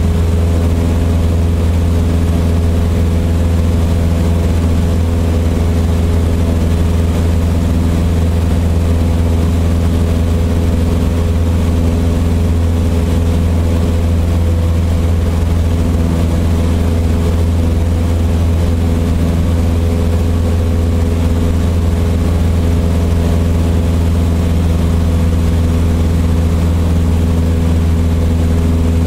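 Light single-engine propeller plane's piston engine running steadily in flight, heard from inside the cabin: a deep, unchanging drone with a hiss of rushing air over it.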